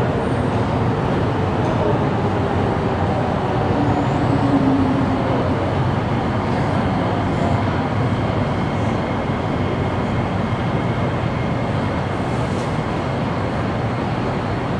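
Singapore MRT train running behind the platform screen doors: a steady rumble with a motor whine that slides in pitch a few seconds in, and a thin high whine from the wheels building in the second half as the train nears the platform.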